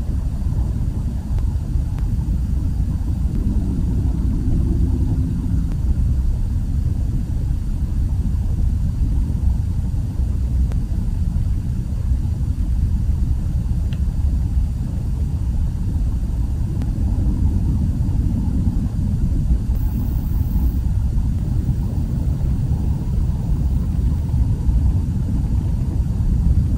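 Steady low rumbling noise with no distinct events; a faint hum rises over it from about three to five seconds in.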